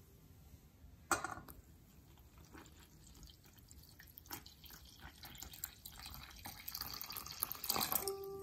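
Water poured from a glass measuring cup into flour in a stainless steel bowl: scattered drips and splashes that thicken into a fuller pour near the end. A sharp click about a second in.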